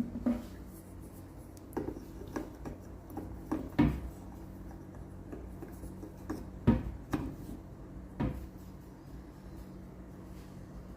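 Scattered clicks and knocks from hands working a Jackson 103 tube tester's selector switches and knobs and seating vacuum tubes, about eight in all, with a steady low hum underneath.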